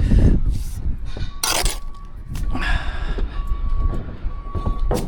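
A vehicle's reversing alarm beeping steadily from about two seconds in, over a low rumble of site noise, with two short hissing scrapes early on.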